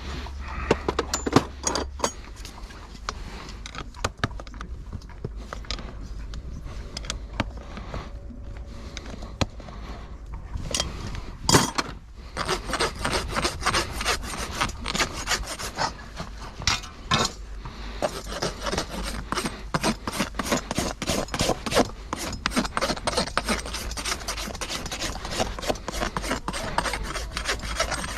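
Farrier's rasp filing a horse's hoof in quick, repeated back-and-forth strokes, with one sharp knock a little before halfway.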